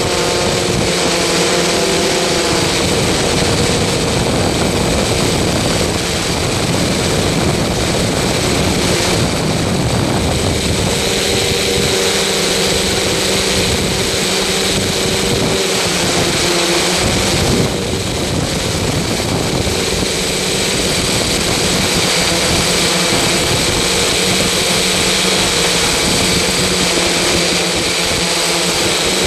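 Loud, steady mechanical drone: a constant rushing noise with a low hum and a thin high whine, unchanging throughout.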